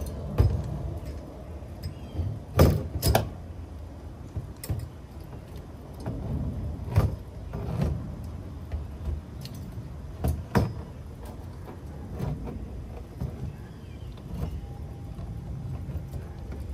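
Scattered sharp metallic clicks and clinks from small metal parts and tools being handled during hand assembly. The loudest pair comes near three seconds in, over a steady low rumble.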